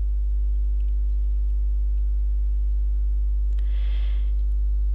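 Steady low electrical mains hum in the recording, with a brief soft hiss about three and a half seconds in.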